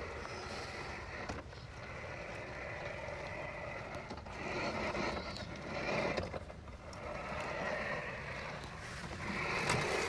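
Anthbot Pion robot lawn mower running over grass, a steady whir of its electric motors and spinning cutting blade that swells a few times as it moves and turns.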